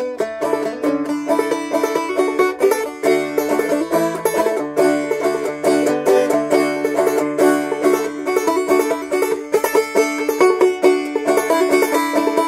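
Banjo played clawhammer style, picking out a Christmas carol melody, with one note ringing steadily underneath. The banjo is in C tuning capoed up to play in D.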